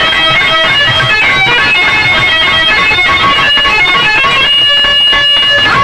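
Instrumental passage of a Bhojpuri Purvi folk song: a plucked-string melody over a steady rhythm.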